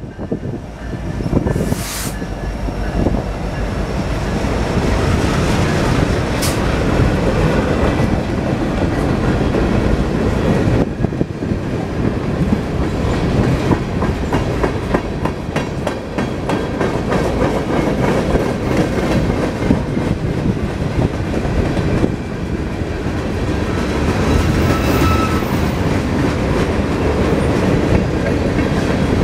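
Canadian National freight train passing close by: the lead diesel locomotives, an EMD SD70M-2 and a GE C40-8W, go by at the start, then a long string of freight cars rolls past with a steady loud rumble and wheels clacking.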